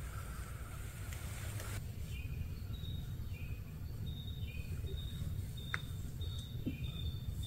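Outdoor ambience: short, high chirps from small wildlife repeat about once or twice a second over a steady low rumble. A hiss stops abruptly about two seconds in, and a single sharp click comes near the end.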